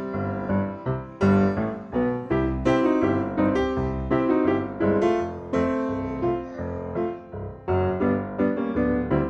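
Background music led by a piano-like keyboard, notes struck in quick succession over a bass line.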